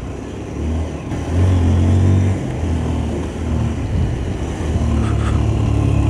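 Motorcycle engine running as the bike rides along a road, heard from the rider's position. It gets louder about a second and a half in, then holds steady.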